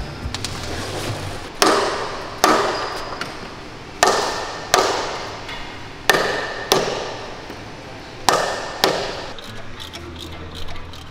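Eight heavy hammer blows on metal, struck in pairs about two seconds apart, each ringing out for about a second.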